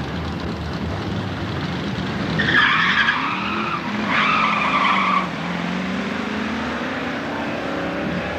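Two drag cars, a Fox-body Ford Mustang and a red muscle car, launching off the line. The engines rumble, then come two bursts of tyre squeal about two and a half and four seconds in, and after that the engines rise steadily in pitch as the cars accelerate away.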